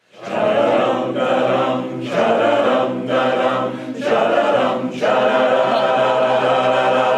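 Barbershop chorus singing a cappella in close harmony: a run of short chords about a second apart, then a long held chord from about five seconds in.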